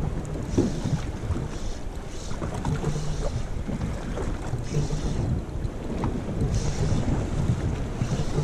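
Wind buffeting the microphone over the wash of choppy sea water and small waves, rising and falling in gusts.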